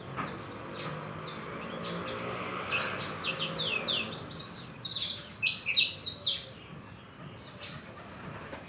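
White-eye (pleci) songbird singing a fast, twittering song of quick falling high notes, loudest and busiest in the middle, with a faint low hum underneath early on.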